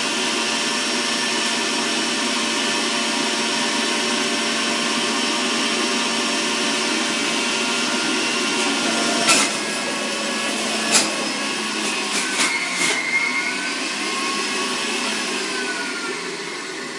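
Centrifugal juicer's motor running steadily with a high, even whine. A few sharp knocks about nine to thirteen seconds in, and near the end the motor's pitch sags as produce is pressed down the feed chute.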